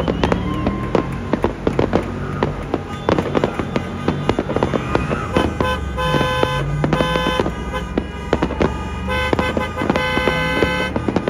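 Fireworks going off in rapid, overlapping bangs and crackles. From about halfway through, a car horn honks in repeated blasts over them.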